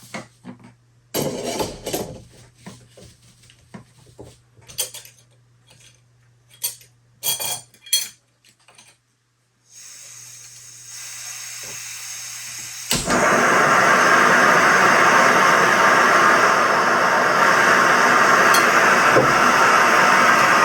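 Cups and coffee-making gear clinking and clattering in short knocks. About 13 seconds in a sharp click comes, then a loud, steady hiss as the coffee water is heated.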